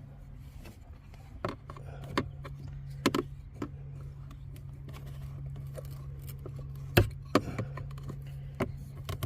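Plastic knocks, clicks and scraping as a cabin air filter is worked loose in its housing behind a pickup's glovebox, with a sharp knock about seven seconds in, over a steady low hum.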